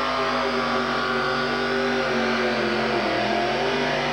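Two-wheel-drive pulling vehicle's engine running flat out while it drags a weight-transfer sled down the track. The engine note holds steady and high, sagging slightly about three seconds in as the sled's load builds.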